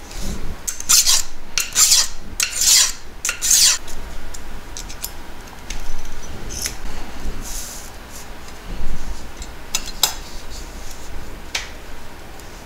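A file rasping across a model railroad stock rail in about four strokes, cutting away part of the rail's base so the switch points can close against it, followed by lighter clicks and scrapes of small metal tools and rail.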